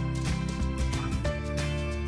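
Background music with a steady beat and held notes, the chord changing about a second in.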